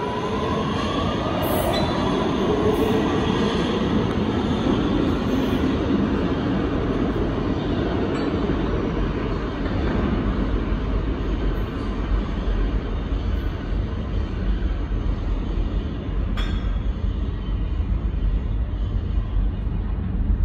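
2023 Kawasaki R211A subway train pulling out of the station, its propulsion motors whining up in pitch as it gathers speed over the first few seconds, over the rumble of its wheels on the rails. The higher sounds thin out as it runs off down the tunnel while a low rumble carries on.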